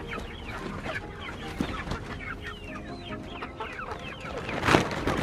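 Young chickens peeping and cheeping over and over in short falling calls. Near the end there is one brief loud crunch.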